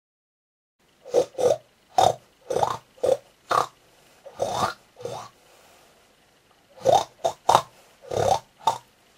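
A series of short pig grunts and oinks, about a dozen, in two runs with a pause between them, starting about a second in. They are a pig character's lines of speech, subtitled as words.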